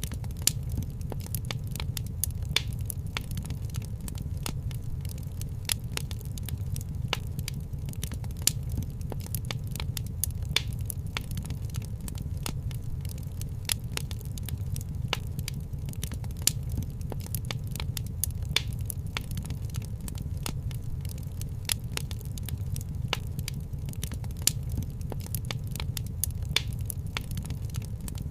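Wood fire crackling in a fireplace: irregular snaps and pops over a steady low rumble.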